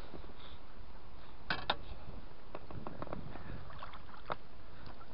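Water splashing at the side of an inflatable rubber boat as a hand works in the water, over a steady low rumble. A pair of sharp knocks about a second and a half in, then lighter scattered ticks.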